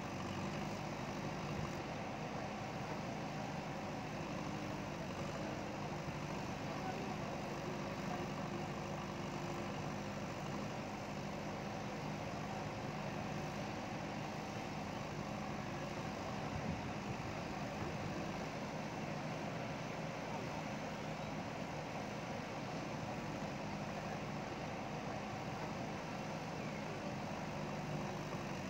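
JCB backhoe loader's diesel engine running steadily, its low hum even throughout.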